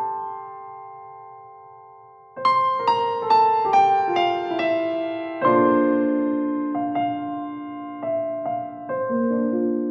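Background piano music. A chord fades out, then a descending run of single notes begins about two and a half seconds in, followed by struck chords that ring and fade.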